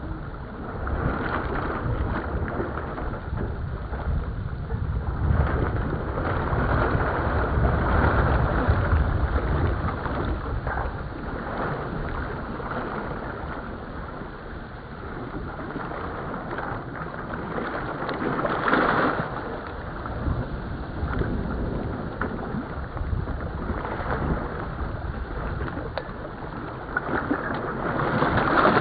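Wind buffeting the microphone over the rush of water along the hull of a sailboat under way, a steady noise that swells and eases, with a stronger gust about two-thirds of the way through.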